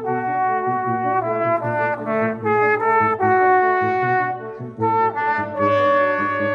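A brass quintet (trumpet, French horn, trombone and tuba) playing together: held chords moving from note to note, with a short break about four and a half seconds in.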